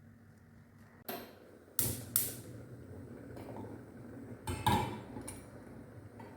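Kitchen utensils and dishes knocking and clinking: about five sharp hits in uneven succession, the loudest a little after two seconds in and near the five-second mark.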